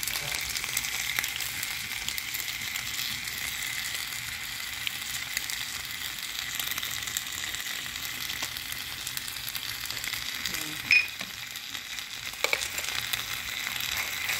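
Chicken pieces and tomato sauce sizzling and crackling steadily in a hot nonstick frying pan. A sharp knock comes about eleven seconds in, and a smaller one a little after.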